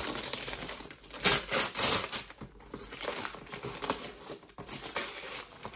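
Wrapping paper crinkling and tearing as it is pulled off a gift box by hand, in irregular rustles, loudest a little over a second in.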